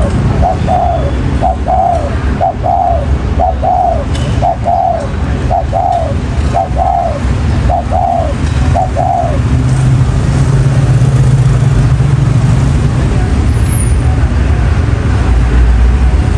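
Spotted dove giving a run of short, arched bow-coos, about one a second, that stop about nine seconds in. A steady low traffic rumble runs underneath and grows louder near the end.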